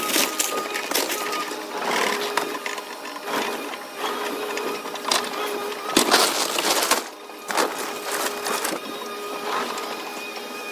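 CAT hydraulic excavator tearing into a wooden house's roof: its engine and hydraulics run with a steady whine under repeated crashes of splintering wood and falling debris, the loudest crash about six seconds in.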